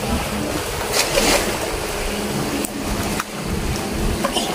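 Steady rushing water noise, with a short low hum about two seconds in.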